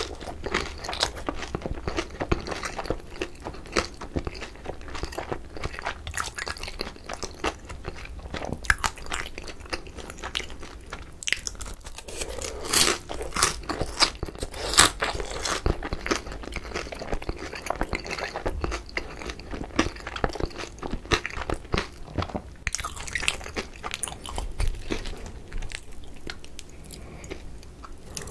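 Close-miked chewing of crispy pan-fried pollack-roe dumplings, with many small crunches of the fried skin all through the chewing.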